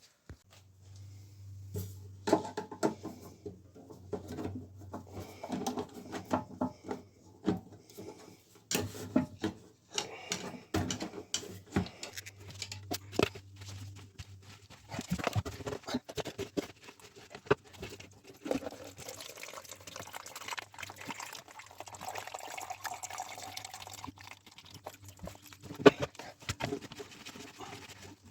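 Water sloshing and dripping amid irregular knocks and clunks, as a toilet is drained and taken apart with the water supply shut off.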